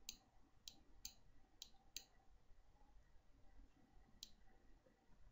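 Computer mouse clicking: five quick clicks in the first two seconds, then one more a couple of seconds later, faint against near silence.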